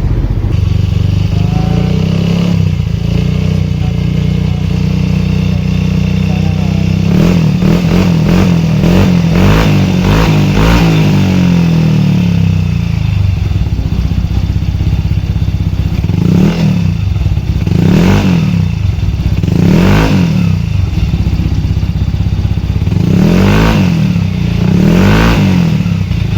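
Yamaha Mio i 125 scooter engine running just after being started: a steady idle, then revved up and down, then blipped about five times in the second half. It is the test run after a new gearbox axle bearing, oil seal and flyballs have been fitted.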